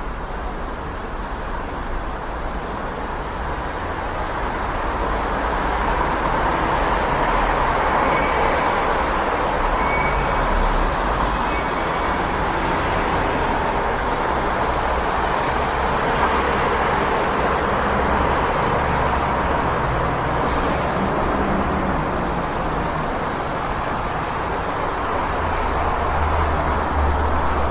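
City street traffic noise: a continuous wash of passing vehicles that swells a little several seconds in and again near the end, with a few faint short high-pitched chirps over it.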